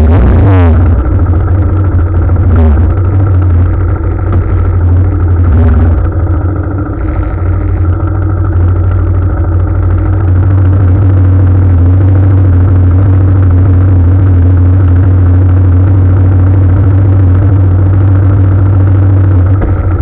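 Motorcycle running along, heard through a camera mounted on the bike: a loud, steady low drone that eases slightly for a moment partway through.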